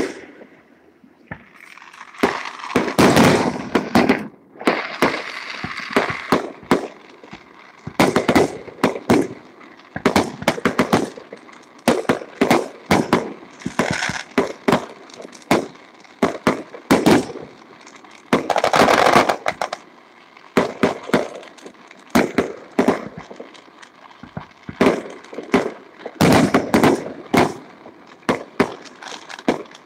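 Aerial fireworks shells bursting in quick succession: a long run of sharp bangs, often several a second, with a few denser stretches of crackle.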